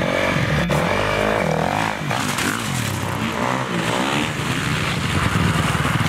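Dirt bike engines revving, their pitch repeatedly rising and falling as the bikes accelerate and back off.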